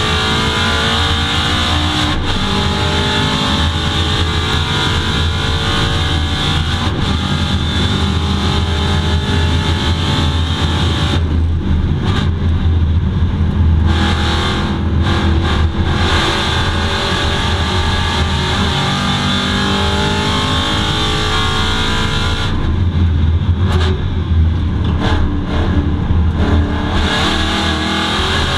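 Aston Martin V8 Vantage GT4 race car's V8 engine at racing speed, heard inside the cockpit, revving up through the gears under full throttle. The engine note falls away twice, about eleven seconds in and again a little past twenty-two seconds, where the throttle is lifted for corners.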